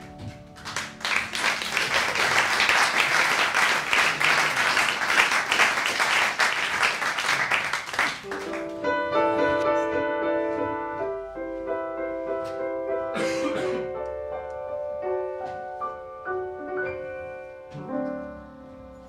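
Audience applauding loudly for about seven seconds, then dying away as a solo piano plays a slow melody of single held notes and chords.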